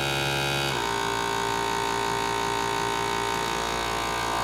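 FoodSaver vacuum sealer running with a steady motor hum while heat-sealing a strip of bag material. Its note shifts slightly a little under a second in.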